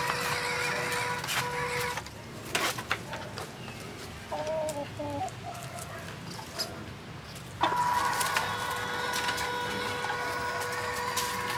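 Toy RC 4x4 car's electric motor and gears whining at a steady pitch. The whine stops about 2 seconds in and starts again near the end. In the quieter gap come a few clicks and one short warbling call.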